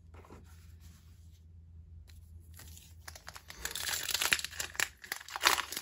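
Foil wrapper of a Pokémon trading card booster pack crinkling and tearing as the pack is opened. It starts about three seconds in as a rapid crackle, with the loudest crinkles near the end.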